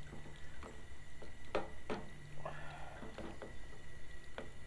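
A utensil stirring thick chili in a stainless steel skillet, with a few sharp knocks against the pan and a short scrape a little past halfway.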